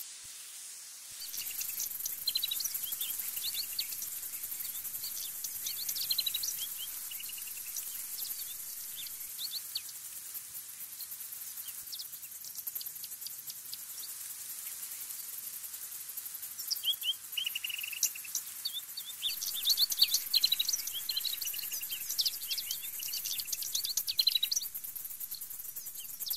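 Small songbirds chirping and singing in short high notes over a steady high-pitched insect buzz. The bird notes come in two busy spells with a quieter stretch between.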